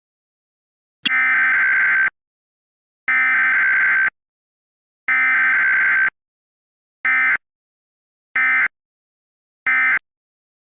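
Emergency Alert System SAME data tones for a Required Weekly Test. Three buzzy digital header bursts of about a second each come a second apart, then three short end-of-message bursts.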